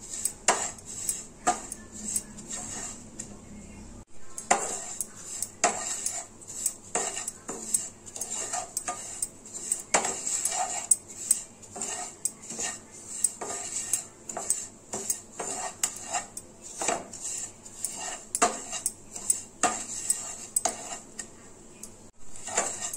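Wooden spatula scraping and knocking against a nonstick frying pan while stirring coconut powder roasting in a little ghee: quick, irregular strokes over a faint steady hiss.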